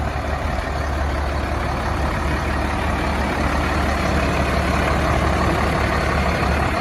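Diesel engine of a 1992 International 4900 dump truck idling steadily, a constant low hum that grows slightly louder toward the end.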